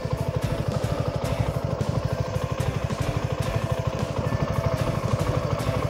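Suzuki V-Strom SX 250's single-cylinder engine running with a steady, even low beat.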